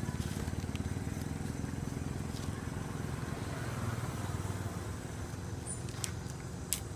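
A low, steady motor rumble with a fine even pulse, like an idling engine, with two short sharp clicks near the end.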